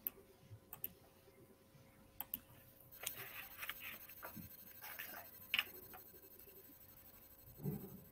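Faint pencil-on-paper writing: scattered sharp clicks at first, then a few seconds of scratching strokes and taps, with a soft thump near the end, heard through a video call's microphone.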